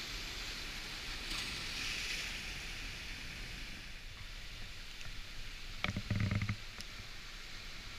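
Ocean surf breaking and washing over a rocky shore platform, a hiss of white water that swells about one to two seconds in and then eases. About six seconds in there is a brief loud low thump.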